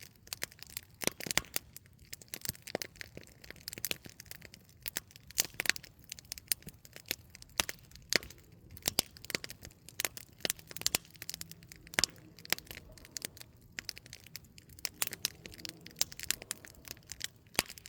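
Campfire crackling: a steady run of irregular sharp pops and snaps from the burning wood, some much louder than others.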